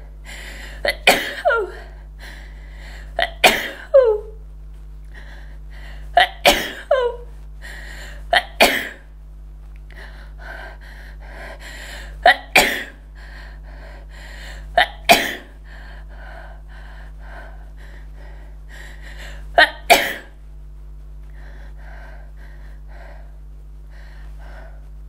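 A person sneezing hard again and again, feather-induced: about seven violent sneezes, several with a quick double onset and a falling vocal tail. Fainter breaths come between them, and the last sneeze falls about four-fifths of the way in.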